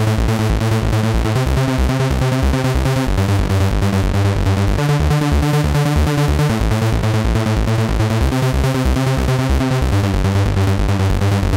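Electronic music: synthesizer chords over a steady pulsing bass beat.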